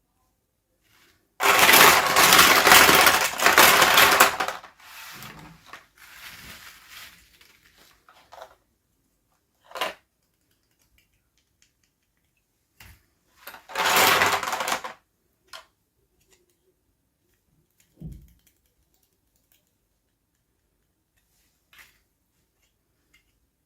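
Plastic packaging crinkling in two loud bursts of a few seconds each, with fainter rustling and scattered small clicks and taps of handled plastic pieces in between.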